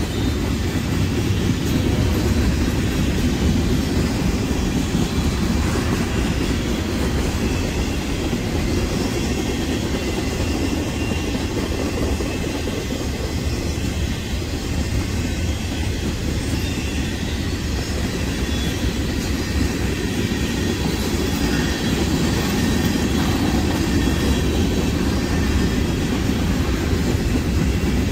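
Freight cars of a long train rolling past on steel wheels: a steady, low rail noise that holds at one level.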